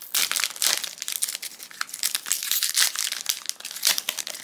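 Foil trading-card booster pack wrapper crinkling rapidly as it is handled and torn open.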